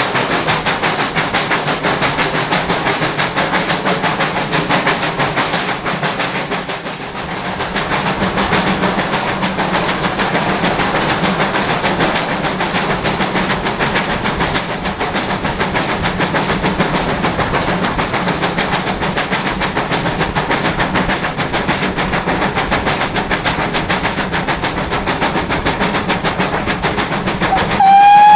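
Two-cylinder GWR Manor-class 4-6-0 steam locomotive 7822 Foxcote Manor working a train, heard from the carriages: a steady run of exhaust and wheel-on-rail noise with a fast, even beat. Just before the end the locomotive's whistle sounds one loud, steady note.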